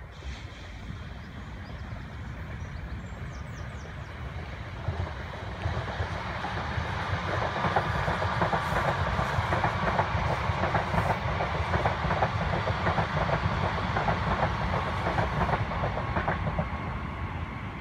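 DART electric commuter train passing, its wheels clicking over the rail joints. The sound builds about five seconds in, is loudest through the middle and eases off near the end.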